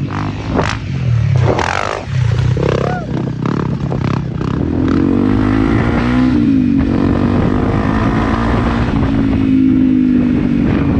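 Small single-cylinder motorcycle engine running while ridden. Its note is uneven with knocks in the first half, then holds a steady pitch from about halfway.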